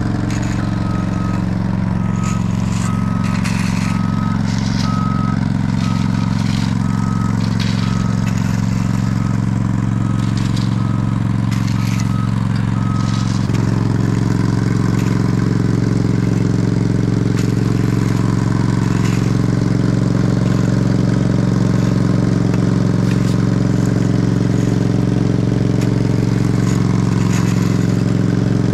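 Diesel engine of heavy construction equipment running steadily while a backup alarm beeps about once a second. The beeping stops about 13 seconds in and the engine grows louder, with some light clattering throughout.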